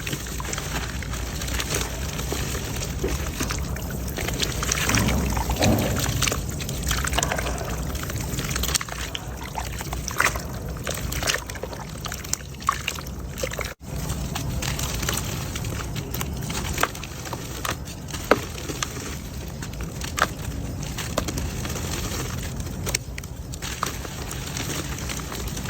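Wet mud crumbling and falling into water: a continuous crackle of many small breaks, trickles and splashes. The sound cuts out for an instant about halfway through.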